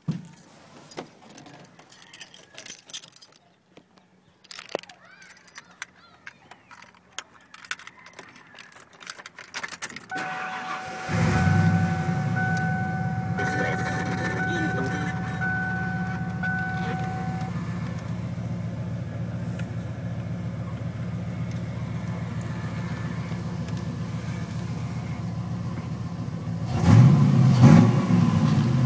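Keys jangling and clicking at the ignition, then the 1993 Ford Lightning's 5.8-litre V8 starts about ten seconds in and settles into a steady idle near 1,000 rpm, with a dashboard warning chime sounding for several seconds after the start. Near the end the engine is revved once to about 3,000 rpm and drops back.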